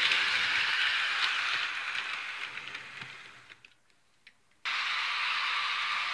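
Steady hiss with a few faint clicks. It fades out about three seconds in, drops to near silence for about a second, then cuts back in abruptly.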